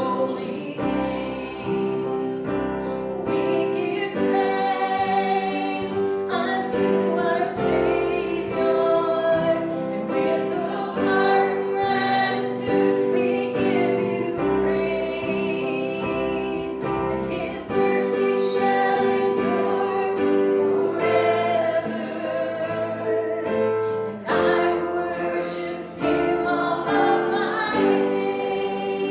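Singing with instrumental accompaniment: a worship song in a church service.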